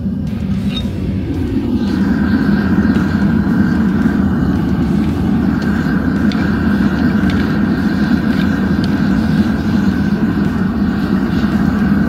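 Gas burner firing steadily into a home-made metal-melting furnace, a constant rushing noise that gets louder about two seconds in.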